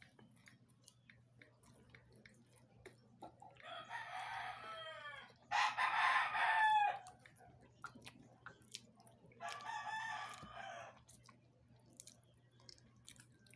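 A rooster crowing three times, a few seconds apart; the second crow is the loudest.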